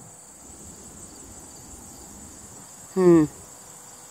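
Steady, high-pitched insect chorus. About three seconds in, a short, loud, voice-like sound that falls in pitch.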